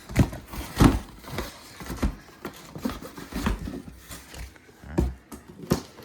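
Cardboard box and packaging being handled: a string of irregular knocks, taps and light rustles, the loudest about a second in and again about five seconds in.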